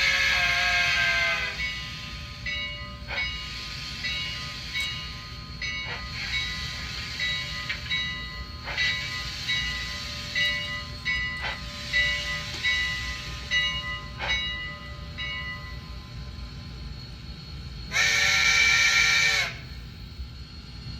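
Sound decoder in an HO scale Fox Valley Models Milwaukee Road Class A Hiawatha 4-4-2 playing recorded steam-locomotive sounds through its small speaker: a chime whistle blast that ends about a second and a half in, then short repeated tones and occasional clanks, and another whistle blast near the end.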